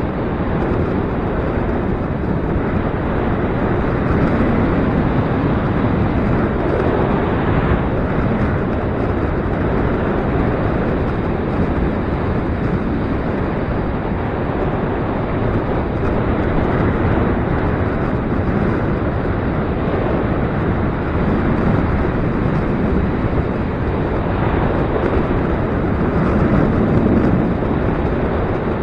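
Gusty wind blowing across the microphone: a loud, steady rushing that swells and eases a few times.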